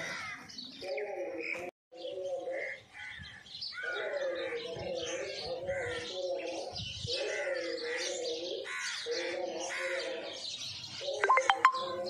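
A flock of house sparrows chirping busily, over a lower bird call that repeats in phrases of about a second. A few sharper, louder sounds come near the end.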